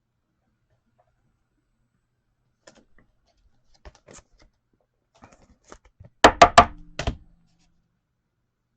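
Sports cards and hard plastic card holders being handled on a table: a few faint clicks and taps, then about four sharp knocks in quick succession about six seconds in.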